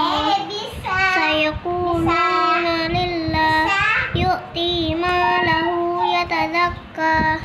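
A young girl chanting Quran recitation in a melodic voice, holding long drawn-out notes with short breaths between phrases.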